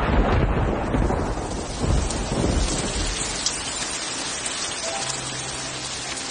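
Thunder rumbling and fading into steady rain, with a few sustained music notes coming in near the end.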